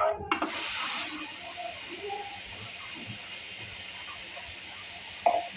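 Ground onion paste sizzling as it hits hot oil in a stainless steel kadai. The sizzle starts suddenly just after the start, eases a little after about a second, then holds steady while the onions fry and are stirred.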